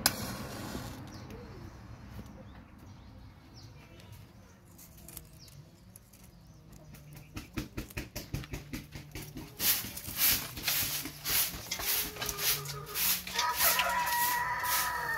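Domestic chickens: a rooster crows once near the end. Before the crow, from about halfway through, there is a fast run of sharp clatter.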